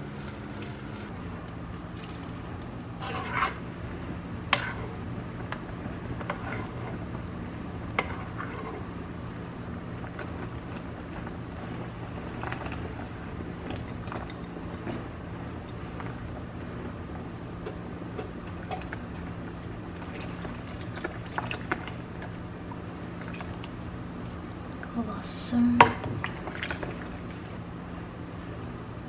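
Kitchen cooking sounds: scattered clinks and knocks of utensils and dishes with some liquid sounds, over a steady low hum. The sharpest knock comes near the end.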